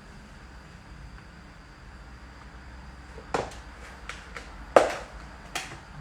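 A few short, sharp knocks and clicks of kitchen items being handled on a counter, starting a little past halfway, about one every half second to second, with the loudest near the end.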